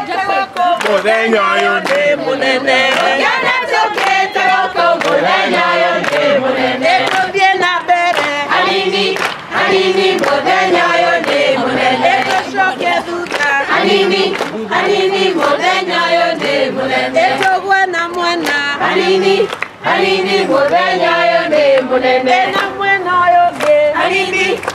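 A chorus of many voices singing a song together, with frequent sharp hits mixed in throughout.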